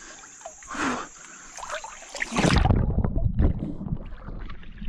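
River water splashing and sloshing around a person swimming and pushing a kayak. About halfway through, a loud low rumble of water and handling noise buffets the microphone as the camera swings.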